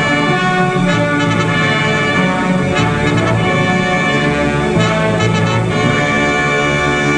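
Orchestral music with brass, trumpets and trombones prominent, holding sustained chords at a steady level.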